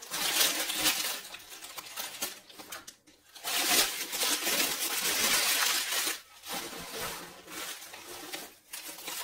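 Rustling and crinkling of packaging with light clinks of small baked-clay pieces as they are unpacked by hand, in two longer stretches, the second one the loudest, then softer handling near the end.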